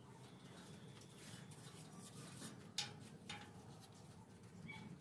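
Faint scratchy brushing of a paintbrush spreading black paint along a metal gate rail, with a couple of light clicks a little past the middle.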